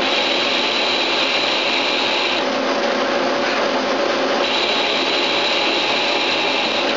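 Daewoo Puma 10HC CNC lathe turning a metal part dry, its spindle running with a steady hum. A higher cutting sound from the tool in the metal comes through for the first two and a half seconds, stops, and returns about four and a half seconds in.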